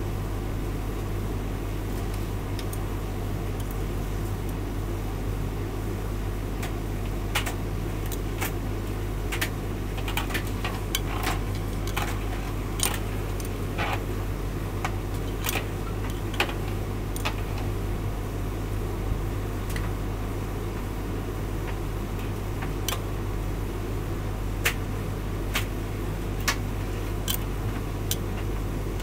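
Hotpoint tumble dryer running with a steady hum as its drum turns, with scattered sharp clicks from the tumbling load through the middle and later part.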